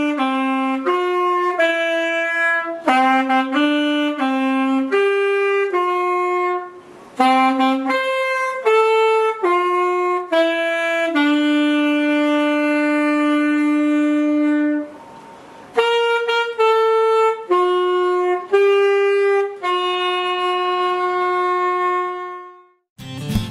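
Alto saxophone playing a solo melody, one note at a time, with a long held note about halfway through followed by a short pause; the playing stops just before the end.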